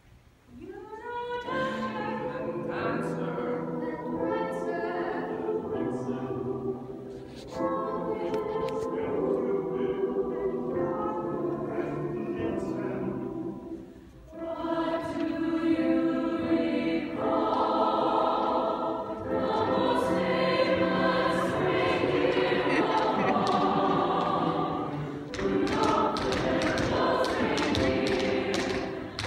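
Large mixed choir singing in a hall, beginning about a second in, with a brief break in the middle before it goes on.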